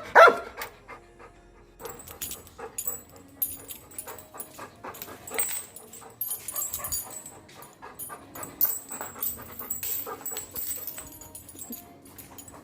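Pet dog panting and whimpering in excitement, with many short, sharp clicks and high, thin tinkling sounds.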